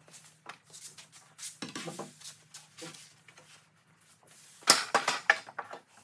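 Wooden boards knocking and clattering as they are handled and set down on a workbench and saw table, with a loud sharp knock about three-quarters of the way through, followed quickly by several more.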